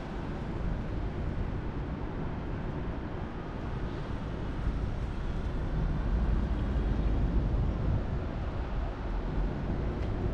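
Road traffic on a wet street: a steady rumble and tyre hiss from passing cars, louder for a couple of seconds after the middle.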